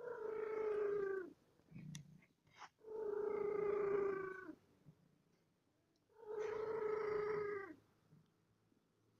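A cat meowing: three long, drawn-out meows a couple of seconds apart, each holding a steady pitch and dropping slightly at the end.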